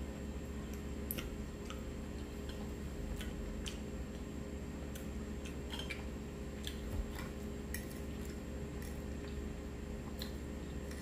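Quiet eating sounds: scattered faint clicks and ticks of a metal fork against a plate and of chewing, over a steady low room hum.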